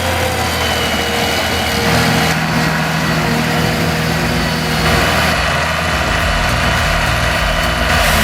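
Heavy machinery engine running steadily, its sound changing abruptly about two and five seconds in.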